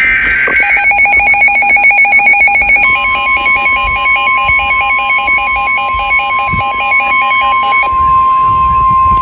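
Emergency alert tones: the tail of an EAS data-header screech, then a fast-pulsing two-pitch electronic alarm beeping until near the end. About three seconds in, NOAA Weather Radio's steady single-pitch warning alarm tone joins and holds, announcing a new severe thunderstorm warning.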